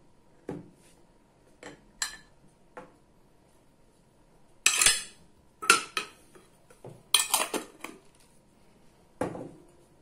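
Glass jar of sesame oil being handled, capped with its metal lid and set down on a table: a series of sharp glass and metal clinks and knocks, the loudest bunched in the middle.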